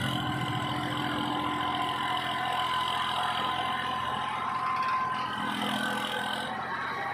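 Massey Ferguson 241 tractor's three-cylinder diesel engine running steadily while it works as a backhoe loader, with a steady high whine over the engine note.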